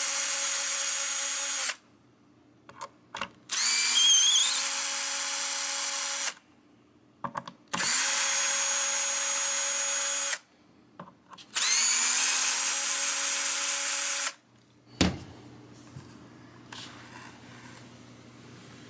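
Cordless drill-driver backing out the steel neck-plate screws of a Telecaster-style guitar: four runs of about two and a half seconds each, with short pauses and small clicks between. After the last run comes a single knock, then faint handling noise as the neck is worked out of its pocket.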